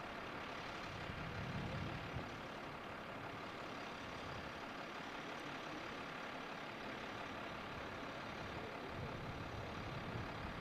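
Steady low rumble of an idling engine under an even background hiss.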